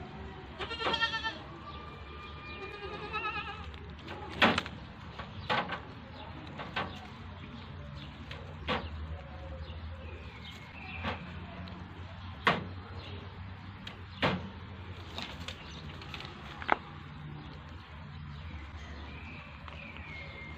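An animal's wavering call about a second in, followed by a second, lower call. After that come about ten sharp, separate clicks or knocks, a second or two apart, over a steady low hum.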